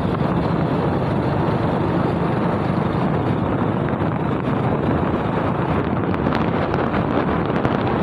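Steady wind noise buffeting the microphone of a camera carried in a moving vehicle, with the vehicle's running noise underneath.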